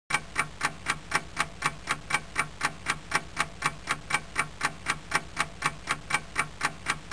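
Clock-ticking sound effect: sharp, even ticks at a fast, steady pace of about five a second.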